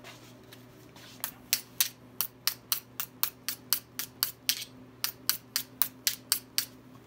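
Skinning knife being honed on a sharpening steel: about twenty quick, even scraping strokes of the blade along the rod, about four a second, starting about a second in.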